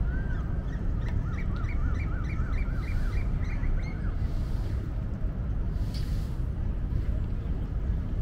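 Steady low outdoor rumble, like wind on the microphone and distant city traffic, with a bird calling over it: one rising-and-falling whistled note at the start, then a quick run of about eight short arched notes, roughly three a second, lasting about three seconds.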